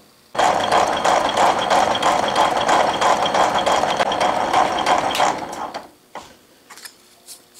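Rhodes 7-inch metal shaper running, its ram stroking the cutting tool back and forth across a cast aluminum block on a light finishing pass about 10 to 15 thousandths deep: a dense mechanical clatter of many clicks with a faint high whine. It winds down and stops about five and a half seconds in, leaving only a few faint clicks.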